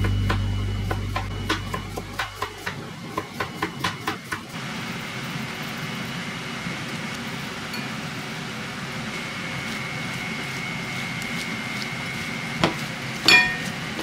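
Kitchen knife chopping on a cutting board: sharp, even knocks about three a second that stop about four seconds in. Near the end comes a single knock, then a ringing clink of glass on glass.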